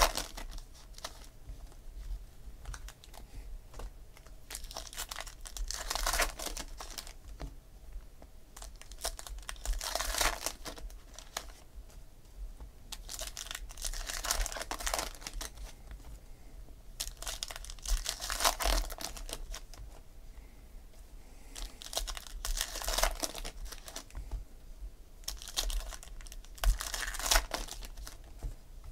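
Foil wrappers of Topps Gold Label baseball card packs being torn open and crinkled by hand. The sound comes in a run of sharp crackling bursts about every four seconds, with quieter rustling between them.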